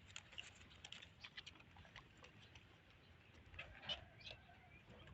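Near silence with faint, scattered small clicks and rustles, a few slightly louder ones about three and a half to four seconds in.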